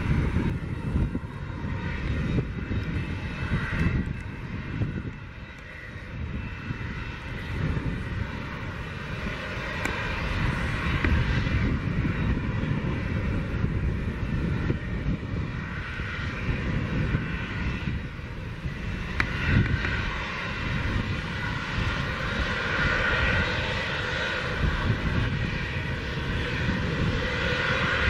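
Twin-engine business jet taxiing, its rear-mounted turbofan engines running at low taxi power with a steady whine over a low rumble. The whine grows louder in the last several seconds as the jet swings around to line up on the runway.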